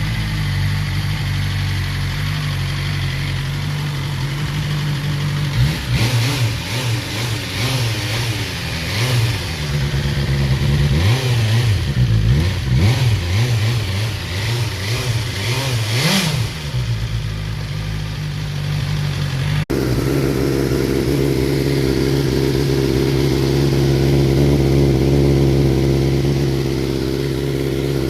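BMW S1000R inline-four motorcycle engine idling, then revved repeatedly with the pitch rising and falling, then settling back to idle. After an abrupt cut it idles again with a different, fuller exhaust tone, as the stock exhaust and a LeoVince aftermarket exhaust are heard one after the other.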